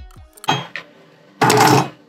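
Water pump pliers working a metal knockout out of a small steel sub-board enclosure: a sharp clack about half a second in, a lighter one just after, then a louder rattle lasting about half a second near the end.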